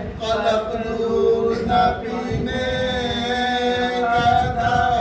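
A marsiya, the Urdu elegy for Imam Husain, chanted by male voices in long, held melodic lines, with one note sustained through the second half.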